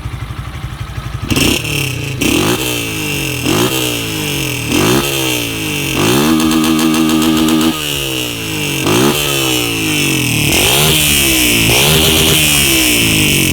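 Honda CG 160 Titan's single-cylinder four-stroke engine, running through a Roncar 'estralador' aftermarket exhaust, idles for about a second and is then revved hard again and again in sharp throttle blips. One blip is held at high revs for about a second and a half near the middle, and a longer high-rev hold comes near the end. The exhaust really bellows.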